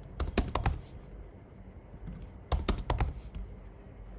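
Typing on a computer keyboard: a short run of keystrokes near the start and another about two and a half seconds in.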